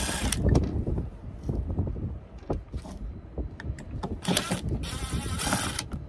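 Cordless drill running in short bursts, backing screws out of the switch panel's metal mounting bracket: a brief whir at the start and a longer one of about a second and a half near the end, with light clatter of handling in between.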